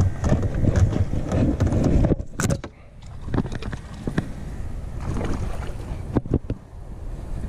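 Rumbling wind and handling noise on the camera microphone for about two seconds. After that come a few sharp knocks of fishing gear and the landing net against the small boat's hull, and light water disturbance as a fish is netted.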